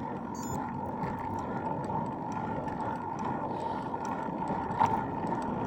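Steady rush of wind and road noise from a bicycle ride, with a faint steady whine and one short knock near the end.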